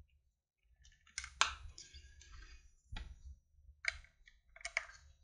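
Handling clicks of small plastic gadgets as a USB cable is fitted to a camera-battery charger and power bank: a handful of separate sharp clicks with soft rustling between them.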